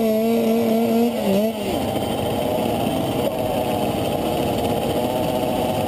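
Several KTM 50 two-stroke minibike engines running together at the start line. One is held at a steady high rev for the first second and a half, then drops back, leaving the pack running steadily.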